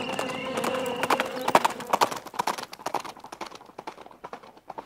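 Horse hooves clip-clopping on a road, irregular sharp clicks that thin out and fade over the last two seconds.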